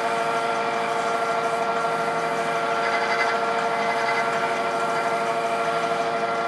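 Wood lathe running at a steady speed, its motor giving a steady hum made of several pitched tones as it spins a turned wooden spindle.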